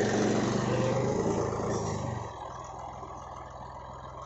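John Deere 5310 tractor's three-cylinder diesel engine running while its front loader works. The engine is louder for about the first two seconds, then drops back to a quieter, steadier run.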